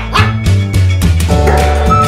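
Background music with a deep, steady bass line and a high gliding melody. A dog gives one short bark right at the start.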